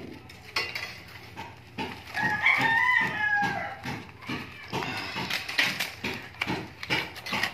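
Rustling and small clicks of cloth-wrapped copper winding wire being pulled loose from a burnt welding-machine transformer. About two seconds in, an animal call sounds once, held for about a second and falling slightly in pitch.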